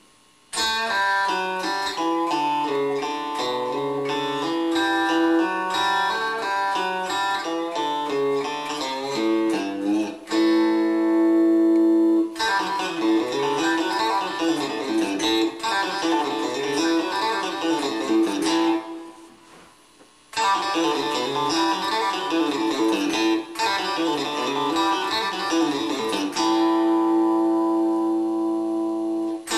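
Telecaster-style solid-body electric guitar played slowly: single picked notes of a chicken-pickin' lick in A, with fretted notes pulled off against open strings that are left ringing. The playing stops briefly about two-thirds of the way through, then starts again.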